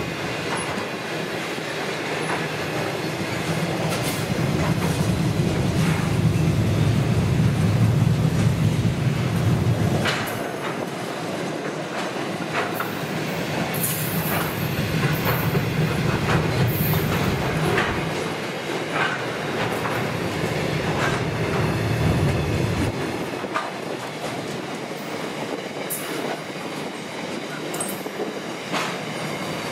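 Container wagons of a long freight train rolling past: steel wheels rumbling on the rails, swelling and fading as the wagons go by, with a steady clickety-clack of wheels over the rail joints and a few brief high-pitched wheel squeals about halfway through.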